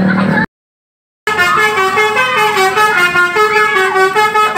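Tour-bus telolet horn, a Basuri-style multi-tone air horn, playing a quick stepping melody with several notes sounding at once. It starts after a short silent break about a second in.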